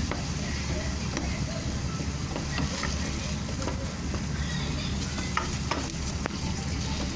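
Butter sizzling as it melts in a pan over a high flame, with scattered sharp clicks from a utensil against the pan.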